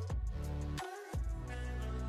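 Background music of sustained pitched notes over a low bass line; the bass drops out briefly about a second in.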